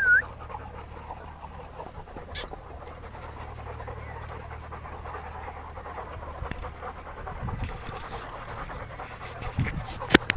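English Labrador panting steadily over a low, steady hum, with a sharp click about two seconds in and a few more near the end.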